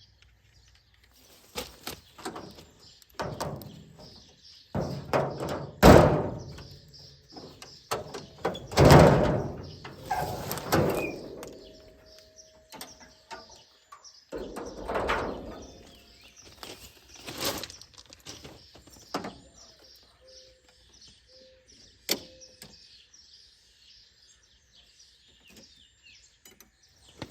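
Scattered clunks and knocks of equipment being handled, two louder thunks about six and nine seconds in, with birds chirping in the background.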